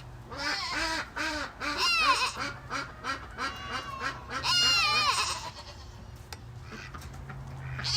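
Ducks quacking in a quick run of short calls, with goats bleating over them: one bleat about two seconds in and a longer, wavering bleat near the middle.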